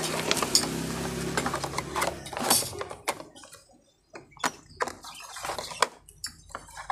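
Small clear plastic drawers of a Kenmaster component rack clicking and clacking as they are handled and set down on a desk, a scatter of light knocks. A low steady hum runs under the first couple of seconds and fades out.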